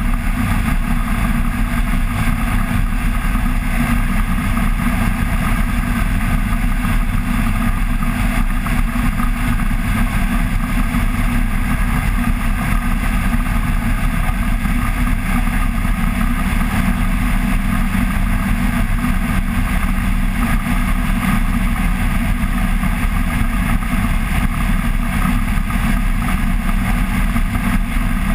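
Flex-wing microlight trike's engine and pusher propeller droning steadily in cruising flight.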